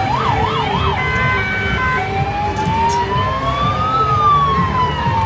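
Emergency vehicle siren: a quick warbling yelp at first, a brief steady tone about a second in, then a slow wail that rises and falls.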